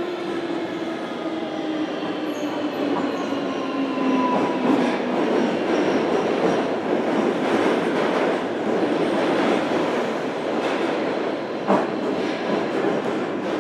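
Inside a JR Kyushu 305-series electric train's motor car: the traction motor whine slowly falls in pitch as the train slows, then fades under the rumble of wheels on rail. A couple of sharp clicks come near the end.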